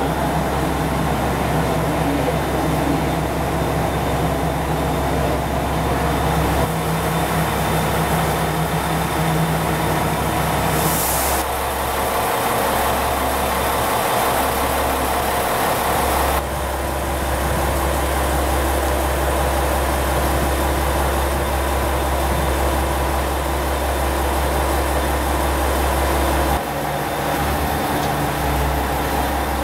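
KiHa 48 diesel railcar's engine idling at a standstill: a steady low rumble, which changes abruptly in tone several times.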